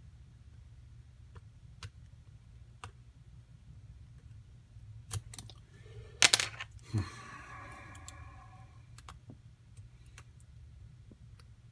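Small metal clicks of a lock pick and tension wrench working the pins of a brass padlock clamped in a bench vise, single-pin picking, with a louder clatter about six seconds in.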